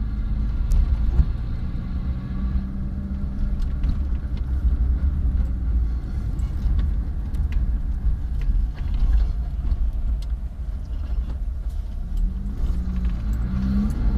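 Car engine and tyre rumble heard from inside a slowly moving car: a steady low drone with a constant engine hum. Near the end the engine note climbs as the car speeds up.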